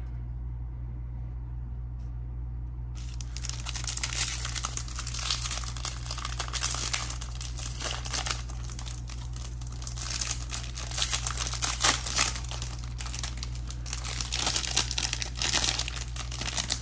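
Silver foil wrapper of a Topps Pristine trading-card pack being torn open and crinkled by hand, starting about three seconds in and going on in uneven crackling spurts.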